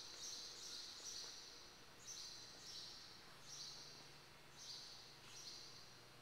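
Faint bird chirping: a string of short, scratchy, high-pitched chirps, singly and in pairs about every half second, stopping near the end, over a low steady hum.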